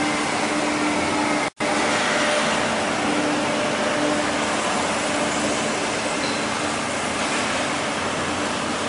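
Steady rushing noise of an enclosed car park with a small hatchback's engine running at low speed, broken by a momentary dropout about one and a half seconds in.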